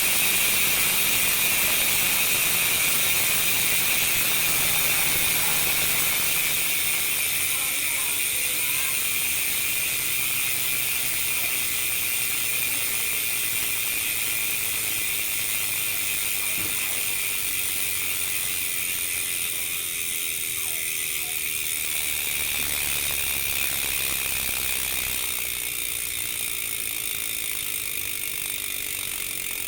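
Speedone Soldier bicycle rear hub freewheeling, its pawls clicking so fast that they blend into a continuous high-pitched ratcheting buzz that slowly grows quieter.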